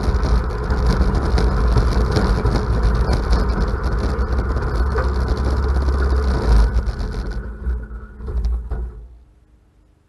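Ariens riding mower's engine running steadily, then winding down about seven seconds in and dying out a second or two later, leaving near silence: the engine being shut off.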